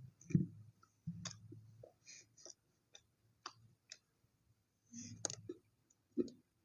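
Mouth sounds of eating close to the microphone: a string of wet clicks and smacks while chewing chocolate toast, with a couple of low thumps and brief low hums.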